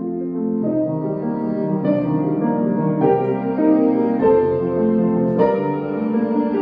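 Cello and grand piano playing a slow piece together. Long bowed cello notes sound over piano chords, with a new chord struck about once a second.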